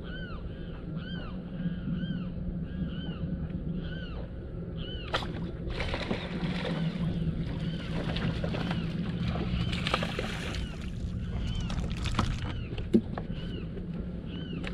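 A bird calls over and over in short arched notes, about two a second, for the first five seconds. Then a hooked bass splashes at the surface for about seven seconds as it is reeled to the boat. A low steady hum sits underneath.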